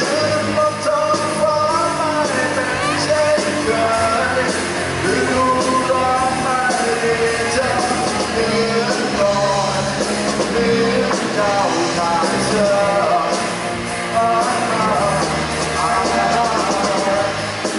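Live rock band playing: a man sings lead over drums and electric guitar, heard through the stage PA.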